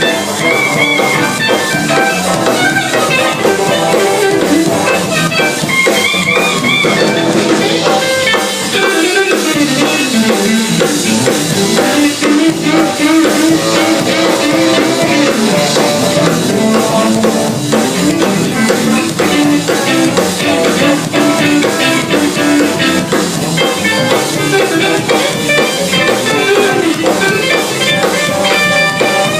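Instrumental band jam: a drum kit with guitar and other pitched instruments, playing without a break.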